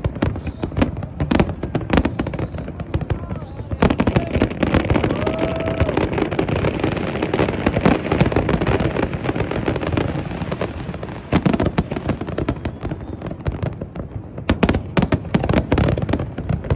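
Fireworks display going off: a dense, rapid run of bangs and crackling, with a few brief whistles among them.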